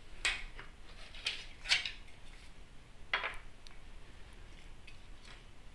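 Sheet-metal cover of a Heathkit photo timer being handled and lifted off its chassis: a few light metallic clicks and scrapes, the sharpest one just past three seconds in.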